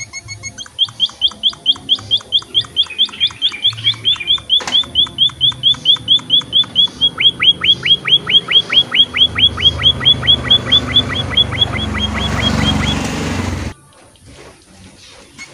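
Emprit (munia-type finch) calling in a fast, steady run of short, sharp chirps, about six a second. A rushing background noise builds under the chirps before everything cuts off abruptly near the end.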